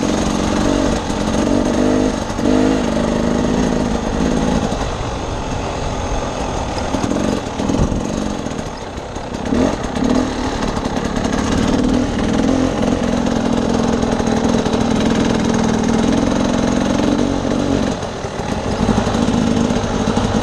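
Husqvarna TE300 two-stroke dirt bike engine under way on a trail, revving up and down over the first few seconds, easing off around eight seconds in, then pulling more steadily.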